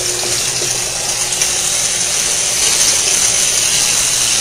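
Water splashing and churning steadily into the tilapia barrel where the flow from a submersible pump comes in, with a low steady hum underneath.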